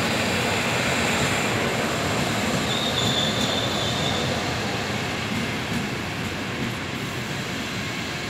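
Train rolling on the rails with steady running noise, and a brief high-pitched wheel squeal about three seconds in.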